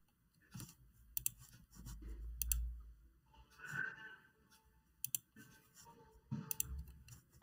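Faint, scattered sharp clicks, several in close pairs, with soft low bumps and rustling between them in a quiet room.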